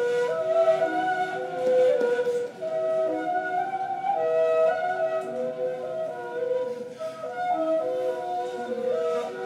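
Two neys, end-blown cane flutes, playing an improvised modal duet: two held notes often sound together, each changing pitch every second or so.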